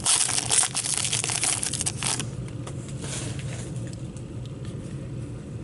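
Trading card pack wrapper crinkling and tearing open, a dense crackle for about two seconds, then faint handling noise.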